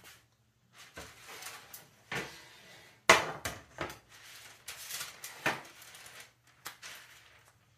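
A frying pan being lifted and moved on the stovetop and a tray shifted about: a run of scrapes, knocks and clanks, the loudest clank about three seconds in.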